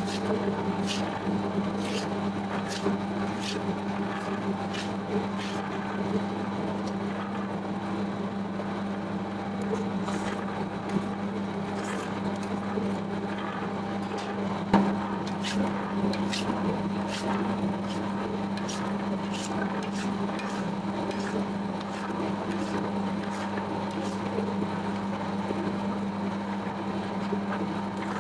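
Electric dough-kneading machine running, its motor humming steadily as the hook arm turns flour and water into dough in a metal bowl, with scattered light clicks and one sharper knock about halfway through.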